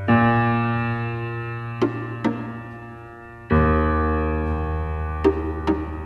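Background music: slow, sustained keyboard chords, a new chord struck just after the start and another about three and a half seconds in, each fading away, with pairs of light clicks in between.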